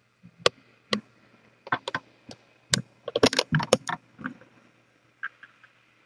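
A string of sharp clicks and rattling knocks, thickest about three seconds in, then a few fainter short clicks near the end.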